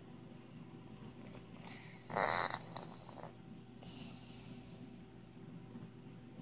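Sleeping house cat snoring: one loud snore about two seconds in, then a fainter, higher-pitched breath about a second and a half later.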